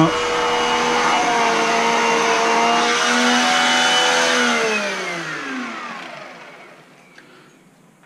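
Shark NZ801UKTSB upright vacuum cleaner running steadily, its motor whine over a rushing hiss of air. A little over four seconds in its motor winds down, the whine falling in pitch as it fades out.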